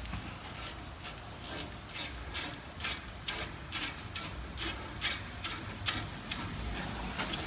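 Socket ratchet clicking in short, even strokes, about two a second, as it backs out a brake caliper bolt.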